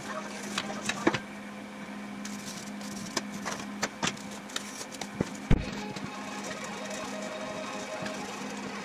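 Cardboard template sheets being slid, flexed and set down on a steel workbench: scattered scrapes and light taps, with one heavier thump about five and a half seconds in, over a steady low hum.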